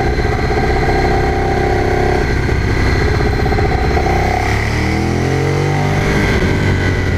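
Ducati Streetfighter 848's L-twin engine running under way, holding a steady note, then rising in pitch as the bike accelerates about four and a half seconds in.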